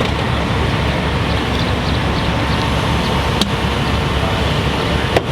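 Steady low engine rumble, with two short sharp clicks about three and a half and five seconds in.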